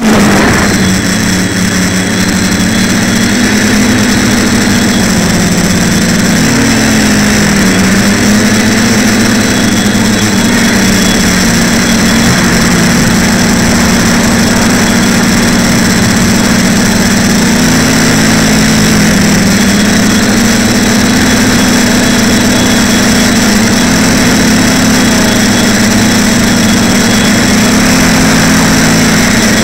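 TBS Discovery quadcopter's electric motors and propellers droning steadily, heard from the onboard camera. The pitch rises and falls a little every few seconds as the throttle changes, over a steady rush of air noise.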